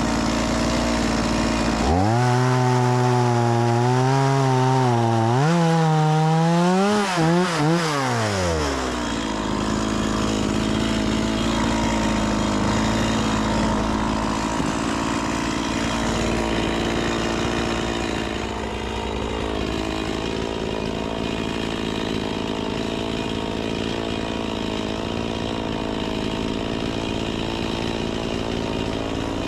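Stihl MS 180 two-stroke chainsaw running while bucking firewood. From about two seconds in its engine note wavers up and down and climbs for several seconds, then settles into a steady drone for the rest of the time.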